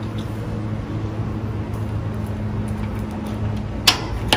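A steady low machine hum, with two short sharp noises near the end.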